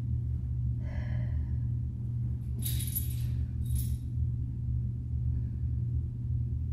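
Dog's collar tags jingling in two short bursts, about two and a half and three and a half seconds in, over a steady low hum.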